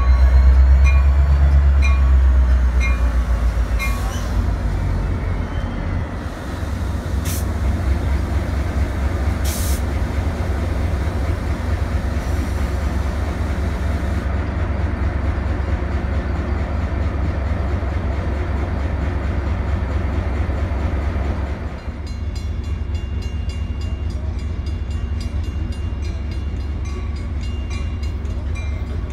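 Metra MP36PH diesel passenger locomotive pulling in and standing close by, its engine giving a steady deep rumble that is loudest in the first seconds, with a bell dinging about twice a second at the start. Two short hisses of air come in the middle. After a change about two-thirds of the way through, a steady train rumble continues with repeated dings.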